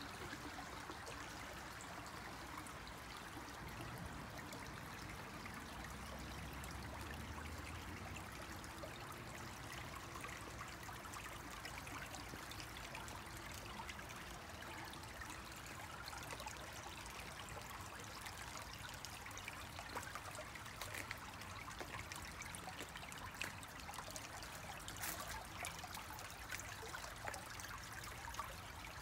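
Shallow stream water trickling over flat rock ledges in a creek bed: a soft, steady water sound, with a few small clicks in the second half.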